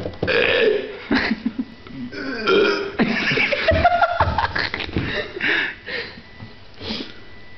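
A person burping several drawn-out belches in a row, shaping them like spoken letters of the German alphabet. One belch near the middle rises in pitch.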